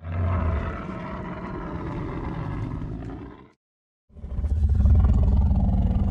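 Designed monster roars of the Red Bluster, the giant red sea beast: a rough, deep roar lasting about three and a half seconds, cut off clean, then after half a second of silence a second, louder roar.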